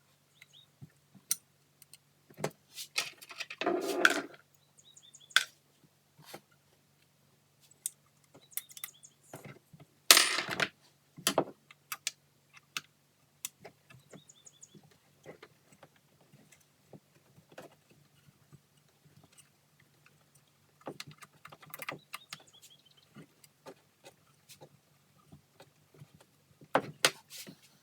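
Hand tools and loose metal parts clinking and rattling in scattered bursts as Allen bolts and the plate over a Sea-Doo's carburetors are taken off, with a steady low hum underneath.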